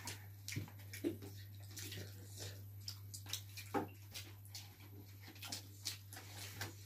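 Close eating sounds: lips smacking, chewing and fingers picking at chicken pieces, heard as short irregular wet clicks and smacks, over a steady low hum.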